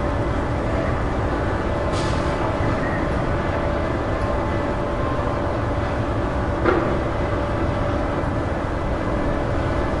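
Wind blowing steadily, a low rushing rumble with a faint steady whistle in it. A short knock comes about two-thirds of the way through.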